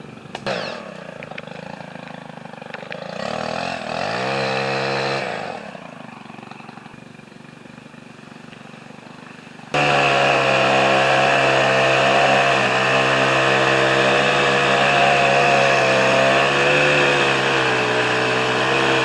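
Gasoline chainsaw, first running quietly with one brief rev, then, about halfway through, coming in abruptly at full throttle and running steadily and loud, its pitch wavering slightly, as it cuts. It drops back right at the end.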